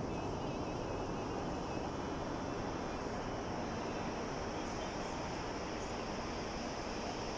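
Sea waves: a steady, unbroken rush of surf, with no single breaker standing out.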